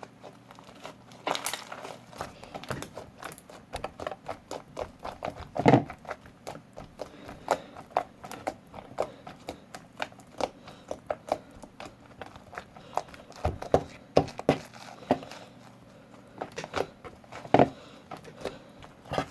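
Homemade slime being worked by hand, giving many irregular small sticky clicks and pops, with a louder squelch about six seconds in and another near the end.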